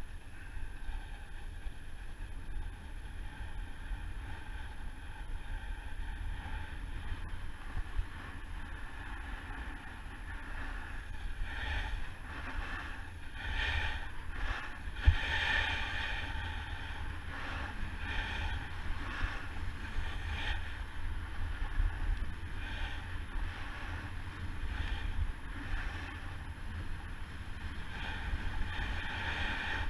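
Snowboard sliding and carving down a snow slope, its edge hissing and scraping over the snow in repeated swells that grow louder about halfway through, over a steady low wind rumble on the camera microphone. There is one sharp knock about 15 seconds in.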